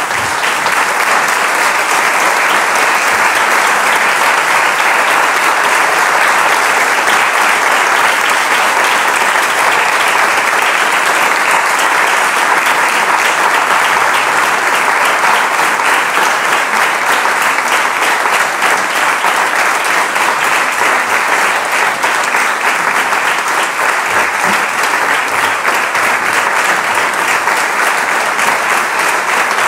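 Steady, continuous applause from a concert audience, with the choir on stage clapping along.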